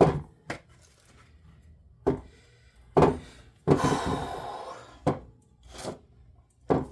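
Hand tools and metal parts being handled, with a few short knocks and clatters and about a second of rubbing and scraping in the middle. No drill is running.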